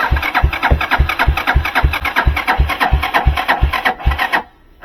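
Engine being cranked over by its starter motor without firing: a steady chug of about three and a half compression pulses a second, stopping abruptly after about four seconds. It is cranking on a weak, low battery that is being run further down.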